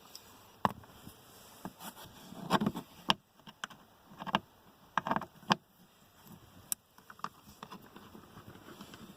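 Irregular clicks, knocks and short scrapes of a screwdriver backing Torx screws out of a car's plastic lower dashboard panel, with the odd knock on the hollow plastic trim.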